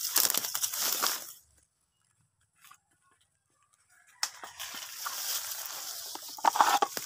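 Leaves, twigs and vines rustling and crunching as dense undergrowth is pushed through or cleared by hand, in bursts. There is a gap of near silence of almost three seconds in the middle.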